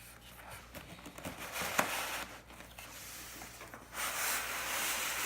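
A box being opened and handled: the lid and sides rubbing and sliding against each other, with a short knock about two seconds in and louder scraping from about four seconds on.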